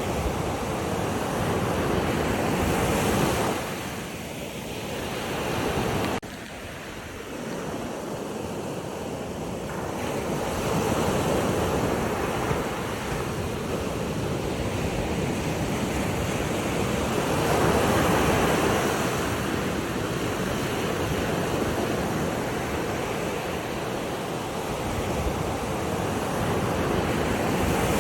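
Sea waves washing onto a shore, surging and falling back every several seconds, with wind buffeting the microphone. The sound dips suddenly about six seconds in.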